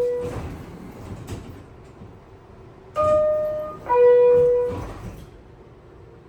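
NYC Subway R62A train's door-closing chime, a two-note ding-dong signalling that the doors are about to close. The last of one chime fades at the start, then about three seconds in a full second chime sounds, a high note followed by a lower one, each held nearly a second.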